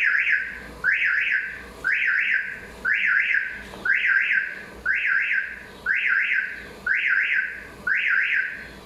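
Aftermarket car alarm siren going off: a pair of quick rising whoops repeated about once a second. The armed alarm has been set off by knocking on the car's side, its shock sensor tripping as intended.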